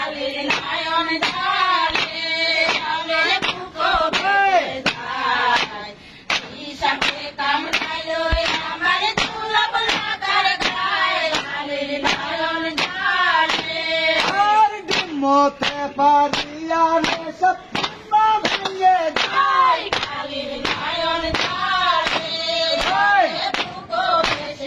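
Roof-beating work song: a group of women sing together while striking a roof floor with flat wooden beaters, the strokes landing as sharp slaps in time with the song.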